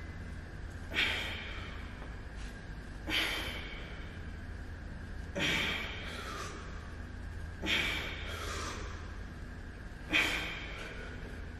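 A man's sharp, forceful exhalations, five of them, about one every two to two and a half seconds, each breathed out with the effort of a dumbbell bench press rep. A steady low hum runs underneath.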